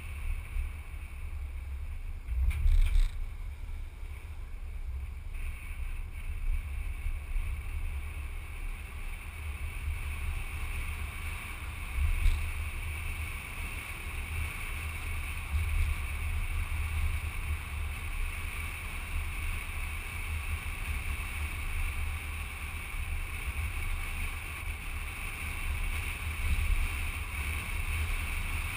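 Car driving at road speed, heard through a camera mounted outside the car: a steady low rumble of wind buffeting the microphone along with road and engine noise. There is a louder bump about three seconds in and a short knock about twelve seconds in.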